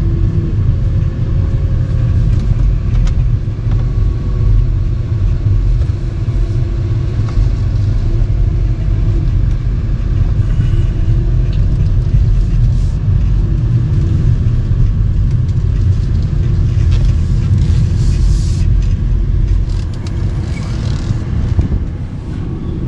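Steady low rumble of a car on the move, with no speech over it.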